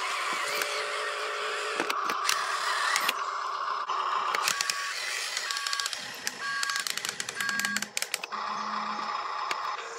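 Huina RC dump truck's electric drive motor and gearbox whining as it drives loaded over dirt, with many sharp clicks.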